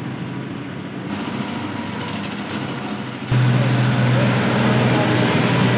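A machine running steadily, with a much louder, deeper drone cutting in about three seconds in.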